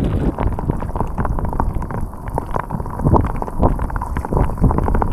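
Gusty wind buffeting the microphone over shallow surf water, with irregular small splashes and sloshing around a hand holding a ladyfish in the water to release it.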